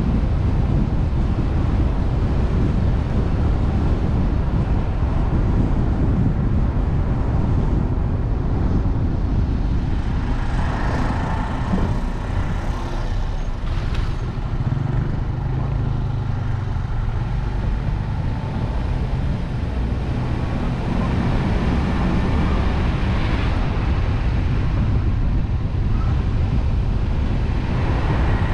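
Steady road and wind noise of a car being driven, with other traffic passing.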